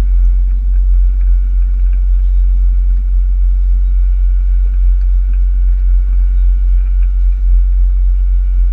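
A tour boat's engine running, a steady low drone with a faint hum above it.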